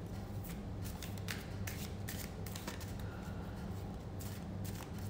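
Irregular soft clicks and rustles of something being handled by hand, over a low steady hum.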